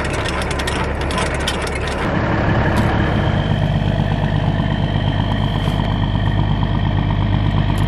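Trailer landing-gear crank clicking rapidly for about two seconds. Then a semi truck's diesel engine comes up louder and runs steadily as the tractor-trailer pulls away with a loaded peanut trailer.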